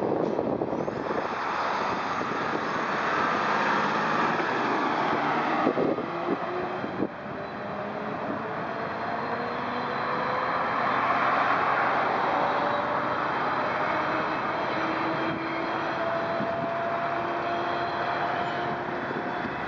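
Street traffic on a multi-lane road: a steady rush of vehicles and tyres, with an engine note rising slowly as a vehicle accelerates away.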